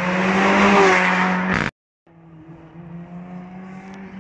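Mercedes-AMG A45's turbocharged four-cylinder engine, fitted with an HG Performance Stage 2 F1 aftermarket exhaust, pulling hard with rising pitch as the car comes close and loud. The sound cuts out suddenly a little under two seconds in, and after a brief gap the engine is heard again, fainter and steady.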